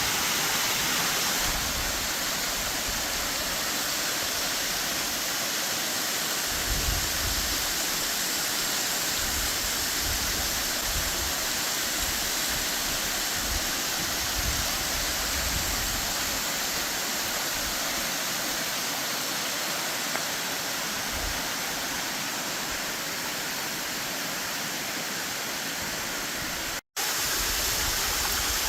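Mary Jane Falls running high with spring snowmelt, a steady dense rush of falling water. The sound cuts out for a moment near the end, then resumes.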